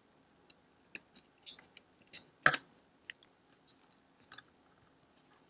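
Small scattered clicks and taps of plastic jumper-wire connectors being pushed onto a Raspberry Pi 4's GPIO header pins, with one sharper click about two and a half seconds in.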